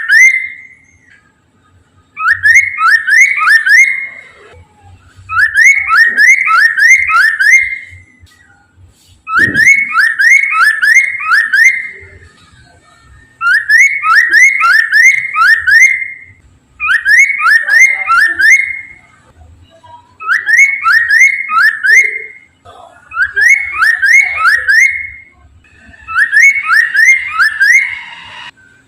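Poksay mandarin laughingthrush singing loudly, repeating one phrase of four or five quick rising whistles about every three seconds. This is the bird in full song ('gacor').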